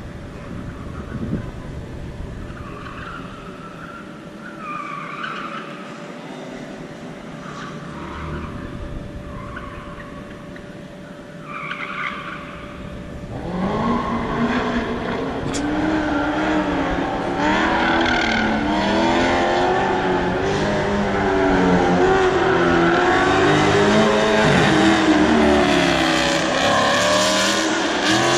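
A Dodge Charger Scat Pack's 392 Hemi V8 on an autocross course. Its tyres squeal in short bursts through the corners in the first half. About halfway through the engine gets much louder and revs up and down repeatedly as the car is driven hard close by.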